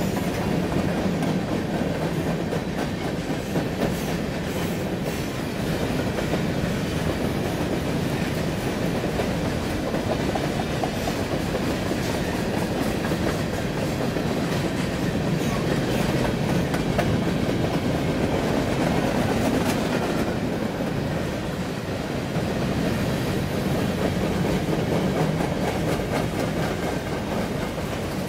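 Freight train of covered hopper cars rolling past: a steady rumble of wheels on rail, with sharp clicks now and then as the wheels cross the rail joints.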